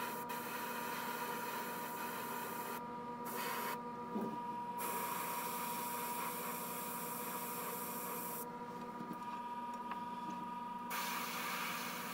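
Gravity-feed airbrush hissing steadily as it sprays paint, the air cut off briefly twice about three and four seconds in and again for a couple of seconds near the end. A steady hum runs underneath.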